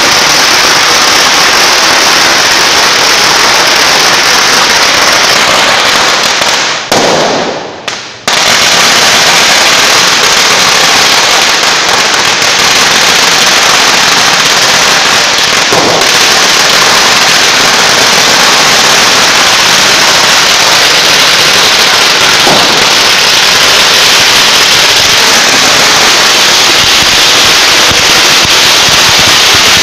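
Firecrackers going off in a loud, unbroken crackle of rapid bangs, dropping off briefly twice about seven and eight seconds in.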